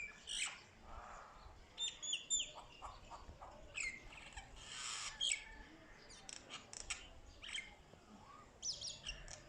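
Mynah bird calling: a run of short whistles, chirps and clicks, with paired falling whistles about two seconds in and a harsh, hissing call about five seconds in.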